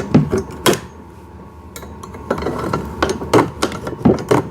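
A series of sharp clicks and knocks, about half a dozen spread irregularly: zip ties being cut off a ride-on toy car's plastic steering mechanism, with the parts knocking as they are handled.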